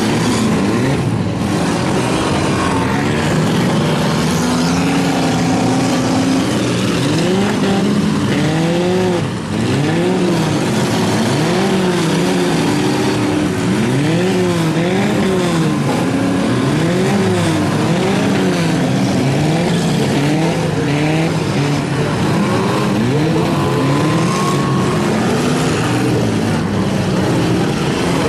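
Several demolition derby cars' engines revving hard over and over, their pitches rising and falling and overlapping, with one brief dip in loudness about nine seconds in.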